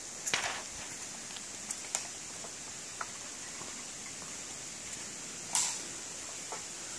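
Bamboo forest ambience: a steady high hiss with scattered, irregular knocks and clicks, the loudest about half a second in and again about five and a half seconds in.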